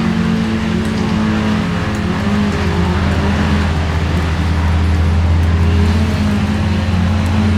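A large engine running steadily with a deep, even hum, getting a little louder about five seconds in.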